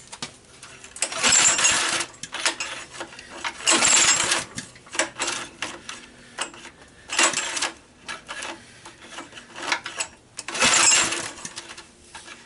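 Honda EG1400 generator pull-started on choke, four hard pulls of the recoil rope and several shorter ones, the engine cranking without catching. It is a no-start: the engine is getting no fuel through a clogged fuel valve.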